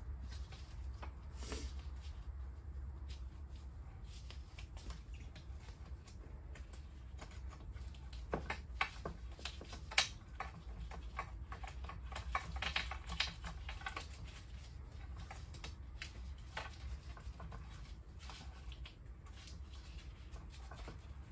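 Motor wires being worked by hand through an electric scooter's deck: scattered small clicks, scrapes and rustles of wire and plastic, busiest around the middle.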